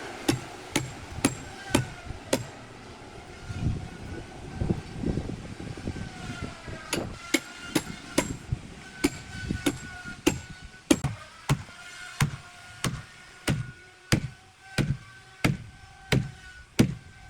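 Repeated hammer blows, about two a second, with a few seconds in the middle where the strikes give way to duller, lower thuds. A faint steady whine runs underneath.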